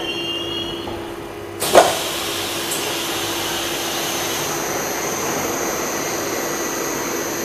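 Metrowagonmash 81-760/761 "Oka" metro train at a station stop: a high whine dies away within the first second, then about a second and a half in the doors open with a sudden rush and a thump. After that comes a steady hiss with a high whine from the standing train.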